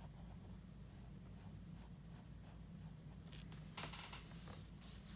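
Faint scratching of a drawing tool on paper in short strokes, busier and louder in the second half, over a steady low hum.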